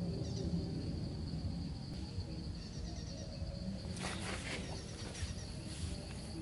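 Insects droning steadily on one high note, with a few short rustling scrapes about four seconds in as string and sticks are handled.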